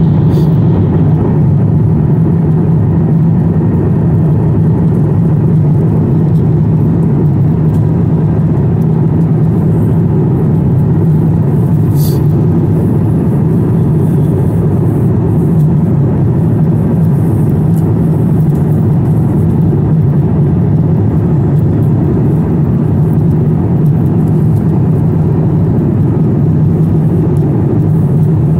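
Cabin noise of a jet airliner in cruise, heard from a window seat: a loud, steady, low drone of engines and airflow. A single brief click about twelve seconds in.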